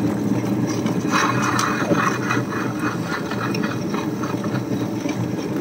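Tabletop wet grinder running, its stone rollers turning in the steel drum and grinding onion and curry leaves into sorghum batter: a steady low hum, with rattling and scraping from about one to three seconds in.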